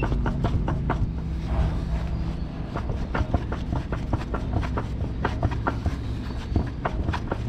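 Irregular metal clicks and clinks as locking pliers and steel parts are handled, over a steady low machine hum.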